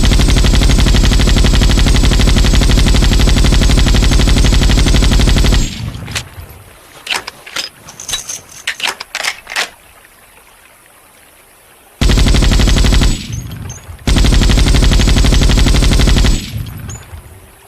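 M60 machine gun firing in automatic bursts: a long sustained burst that stops about six seconds in, a few scattered sharp cracks and a lull, then a short burst of about a second and another of about two seconds.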